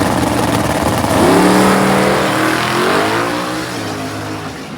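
LS V8 drag cars launching and accelerating hard down the strip. The engine pitch climbs from about a second in, dips at a gear change, climbs again, then fades as the cars pull away.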